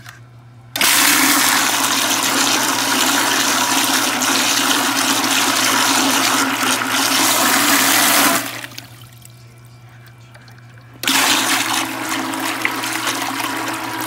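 Seaflo 12-volt bilge pump running submerged, its motor humming as water sprays from its open outlet and splashes. It starts abruptly about a second in, cuts out after about seven seconds, and starts again about eleven seconds in.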